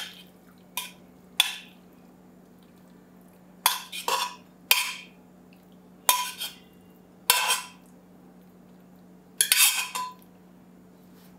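A steel spoon scraping and clanking against the inside of a pressure cooker as dry potato sabzi is scraped out into a bowl: about ten separate scrapes and knocks, some in quick pairs, with pauses of a second or more between them.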